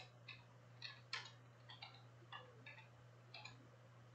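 Glossy Panini Prizm trading cards clicking softly as a stack is flipped through one card at a time in the hand: faint, irregular clicks, two or three a second.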